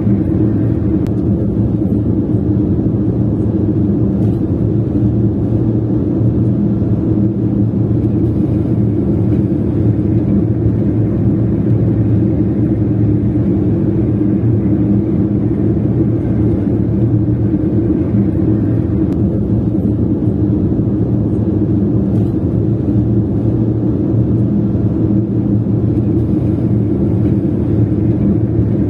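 Steady low rumble of a car driving, engine and road noise running evenly without change.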